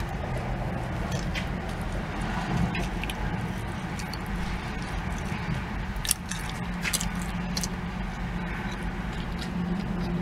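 A person biting into and chewing a steakburger close to the microphone, with a few short sharp crackles about six seconds in, over a steady low hum inside a parked car.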